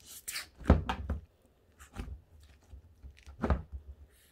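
A few separate soft thumps and handling noises, about four over the few seconds, from slime and its plastic container being handled.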